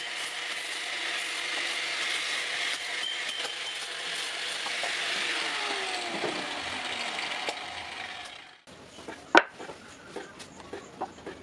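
Angle grinder with a blue abrasive disc grinding the iron handle of a pair of scissors, a steady hissing grind; about five seconds in its pitch falls as the disc spins down. The sound breaks off abruptly at about eight and a half seconds, then comes one sharp knock and a few lighter taps.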